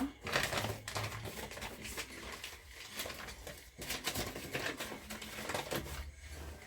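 Irregular clicking and scraping of a utensil in a mixing bowl as pancake ingredients are stirred by hand without a whisk.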